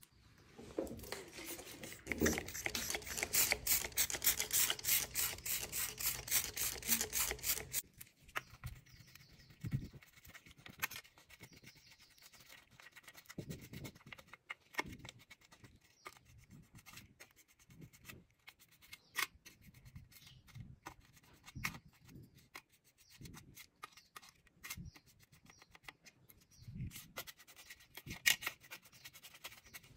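A small brush scrubbing small phone keypad parts held in tweezers in a wet steel tray. Dense, fast scrubbing for roughly the first eight seconds, then softer scattered brush strokes and light taps.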